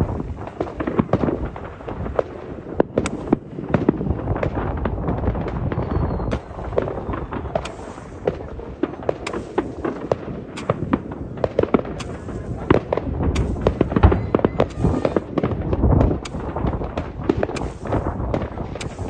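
New Year's Eve fireworks: a dense, continuous run of overlapping bangs and crackles from many rockets and firecrackers going off at once, with no let-up.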